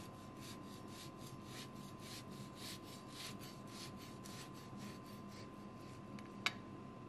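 Knife sawing through a cake's crumbly streusel topping, a quick run of crisp scraping crunches, about four or five a second, that stops about five seconds in. A single sharp click follows near the end.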